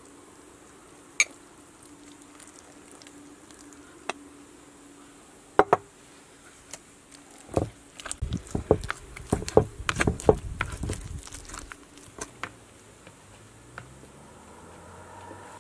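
A metal utensil mixing liquid into mashed potatoes in a plastic bowl: a few single clicks, then a dense run of knocks, scrapes and soft squishes for about four seconds in the middle.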